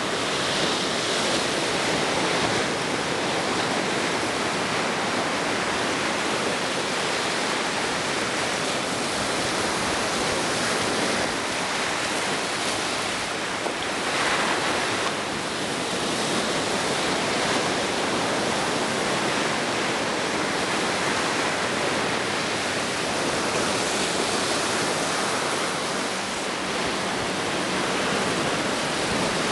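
Ocean surf on a beach: a steady wash of breaking waves that swells a little now and then.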